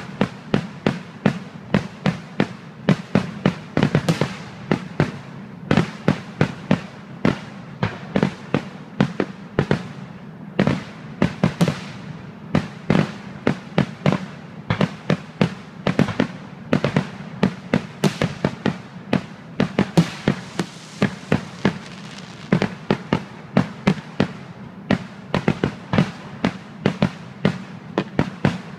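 Aerial fireworks shells bursting in rapid succession, sharp bangs about two to three a second, one after another without a break.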